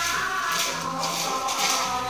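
Dance music with sustained melody notes and a rattling, shaker-like percussion part in a steady beat.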